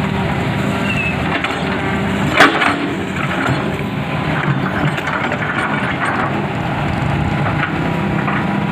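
Hitachi hydraulic excavator's diesel engine running steadily under load, with one sharp crack about two and a half seconds in.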